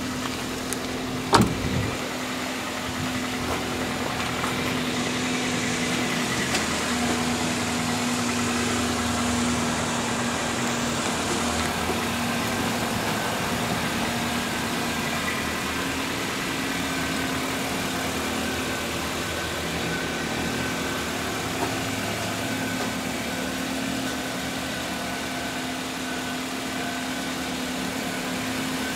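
2005 Toyota Corolla's 1.8-litre VVT-i 16-valve four-cylinder engine idling steadily, heard from outside the car, with one sharp thump of a car door shutting about a second and a half in.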